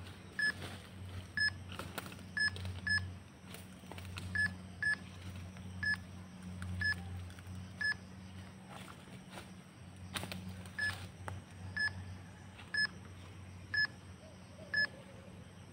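Short, high electronic beeps, all at the same pitch, come about once a second and sometimes in quick pairs. A low steady hum runs under them.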